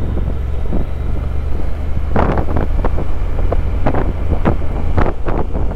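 Motorcycle riding along steadily: a low engine drone under wind noise buffeting the on-bike microphone, with irregular gusts from about two seconds in.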